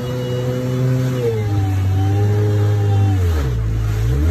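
Kawasaki jet ski engine running at cruising speed with a steady droning whine. Its pitch steps down twice as the throttle eases, then drops sharply near the end and revs back up, over the hiss of water off the hull.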